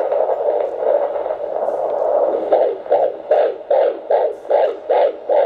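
Handheld fetal doppler on a pregnant belly picking up the unborn baby's heartbeat: a steady hiss at first, then from about two and a half seconds in a fast, regular pulsing of about two and a half beats a second.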